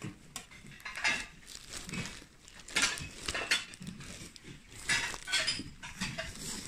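Hands rummaging through a crate of cloth and cellophane-wrapped textiles: irregular bursts of rustling and crinkling, with a few light clinks among them.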